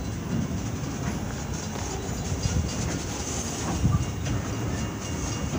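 CSX rack-sided wood cars rolling through a grade crossing: a steady low rumble of steel wheels on rail, with an occasional clack at the joints.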